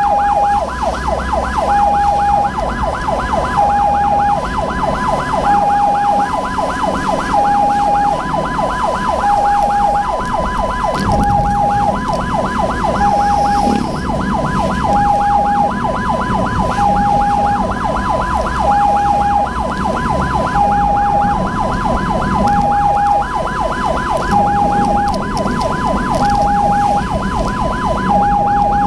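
Ambulance siren sounding without a break: a fast yelp overlaid with a two-tone hi-lo that switches pitch about every half second, over the vehicle's engine and road noise.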